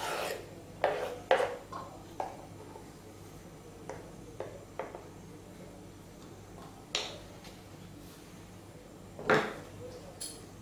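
A knife scraping diced cucumber and chopped herbs off a wooden chopping board into a stainless steel bowl: about ten short scrapes and taps, unevenly spaced, the loudest about nine seconds in.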